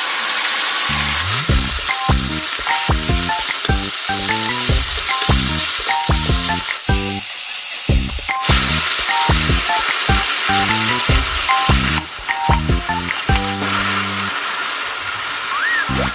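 Chicken pieces searing in hot fat in a pan, sizzling steadily, with the sizzle flaring about seven seconds in as the pieces are turned with tongs. Background music with a light beat plays over it.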